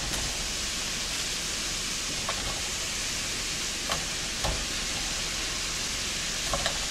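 Melted butter sizzling steadily in a skillet with minced garlic and sliced jalapeños, with a few faint knocks as fried chicken wings are set into the pan.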